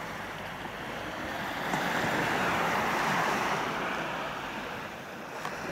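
Sea wave washing up the beach, its rush swelling over a couple of seconds and then fading away.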